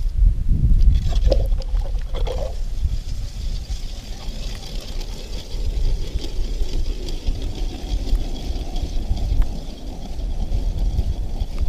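Wind rumbling and buffeting on the microphone over open ice. Under it runs the faint, steady grinding of a hand ice auger cutting a hole through the river ice.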